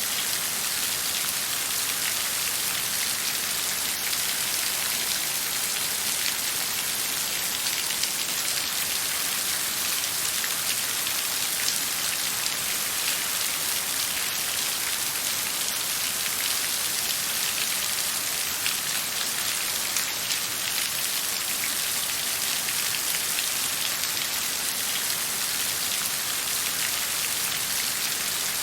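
Steady rain falling: an even, unbroken hiss of many drops hitting a surface, with fine scattered drop ticks and no thunder.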